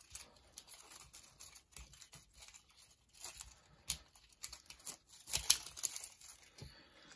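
Thin plastic seal strip being peeled and torn off a plastic toy egg: uneven crinkling with scattered sharp crackles, the loudest about five and a half seconds in.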